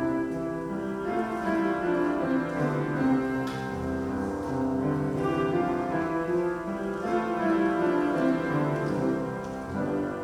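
Instrumental introduction to a church choir anthem, played on a keyboard: a steady flow of chords.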